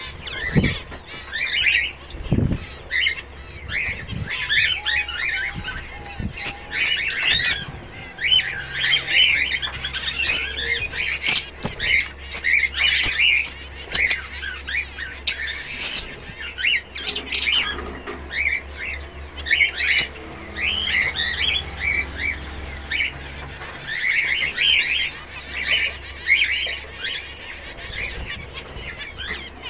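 A flock of zebra finches calling constantly, many short chirps overlapping, over a low steady hum.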